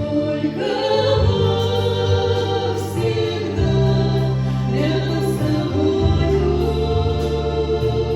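A choir singing a Christian hymn with organ accompaniment, held chords under a slow sung melody.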